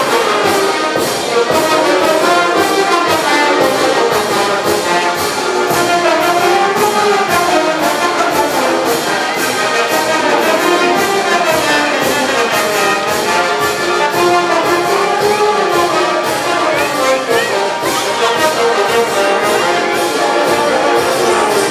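Village brass band playing dance music, with brass carrying a wavering melody over a steady beat.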